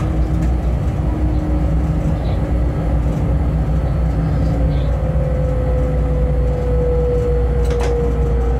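Cab sound of a Bombardier TRAXX class 186 electric locomotive hauling a freight train: a steady running rumble with a faint whine that slowly drops in pitch, and one short click near the end.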